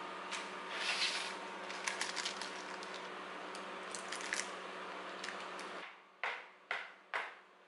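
Plastic scraper and fingers scraping and rustling against parchment paper as thick cake batter is spread in a metal baking pan, over a steady background hum. Near the end come three sharp knocks about half a second apart: the pan tapped on the counter to knock air bubbles out of the batter.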